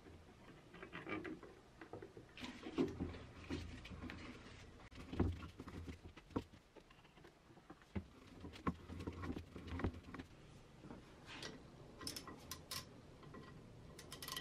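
Faint, irregular metal knocks, clicks and scrapes from a heavily rusted manual arbor press as its pinion handle and rack ram are worked by hand to free them after penetrating oil, with a quick run of sharp clicks near the end.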